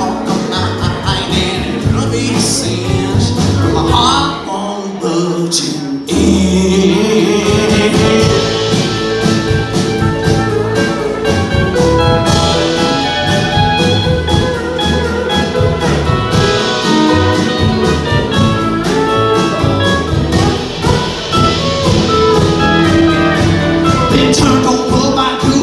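Live country band playing: acoustic guitar, electric guitar, upright bass and steel guitar. The bass and low end drop out briefly about four seconds in, and the full band comes back in about two seconds later.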